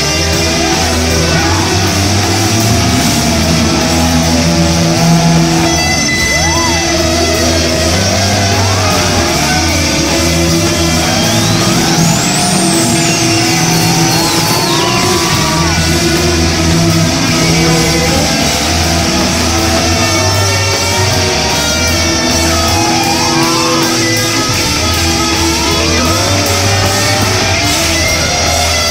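Rock music with guitar, a bending lead line over sustained bass notes.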